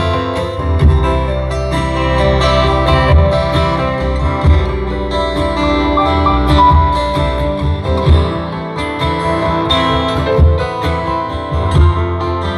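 Music led by plucked and strummed guitar over a steady bass line, with notes picked out in a regular rhythm.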